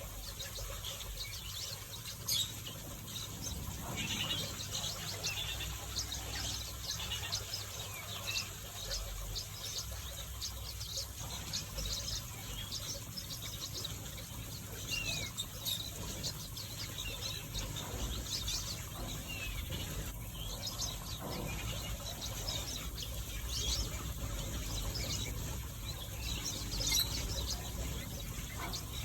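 Mixed aviary finches chirping and twittering, with many short, high calls overlapping continually and a few brief gliding notes.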